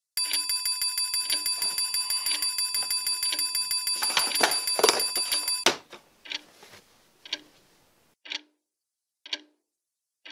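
Mechanical alarm clock bell ringing in a fast, steady clatter, cut off suddenly about five and a half seconds in when a hand slaps it off. The clock then ticks about once a second.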